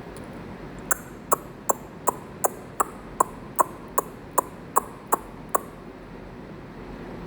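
A quick, even run of about a dozen sharp clicks, roughly two and a half a second, that stops a little past halfway, over a steady background hiss.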